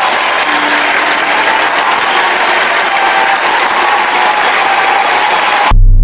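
Crowd applause: a large group clapping steadily. Near the end it cuts off suddenly and a deep, low throbbing sound takes over.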